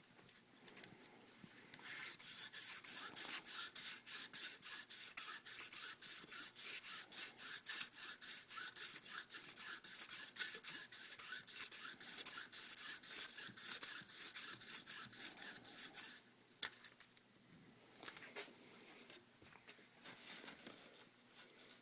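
Emery cloth rubbed back and forth in quick, even strokes, about four or five a second, polishing the rough inside of a dual-flush toilet valve part where its axle runs, to stop the mechanism jamming. The strokes stop about sixteen seconds in, and a few fainter rubs follow.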